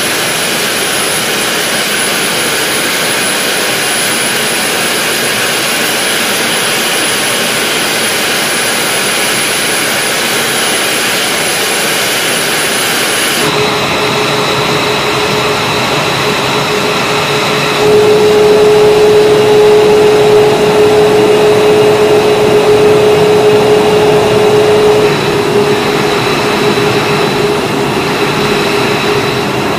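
F-22 Raptor's Pratt & Whitney F119 turbofan engines running on the ground: a steady rush of jet noise with a high, even whine. About halfway through the sound changes abruptly to a lower steady tone, which grows louder for several seconds and then eases slightly.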